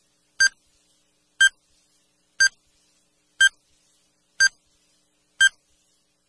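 Countdown timer sound effect beeping once a second: six short, high electronic beeps.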